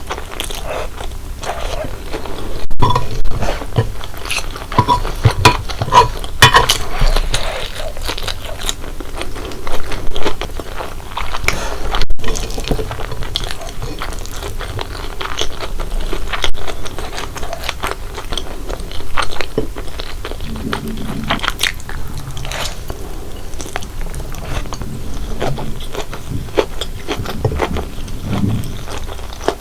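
Close-miked eating sounds of someone chewing spicy stir-fried instant noodles with corn and cheese: wet, sticky chewing and mouth noises broken by many short sharp clicks and crunches.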